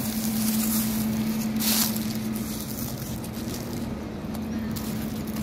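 Dry fallen leaves rustling and crunching as oak seedlings are dug and pulled out of the leaf litter, with one sharper rustle about two seconds in. A steady low hum runs underneath.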